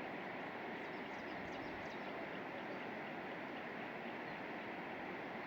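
River water rushing steadily, a constant even noise with no breaks.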